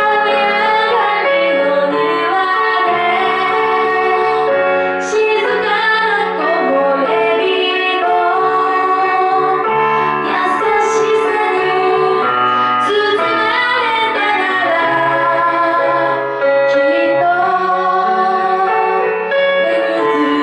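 A woman singing a slow Japanese pop ballad, with keyboard accompaniment.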